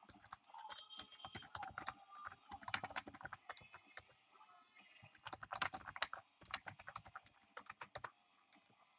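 Computer keyboard being typed on, irregular clusters of quick key clicks that stop about a second before the end.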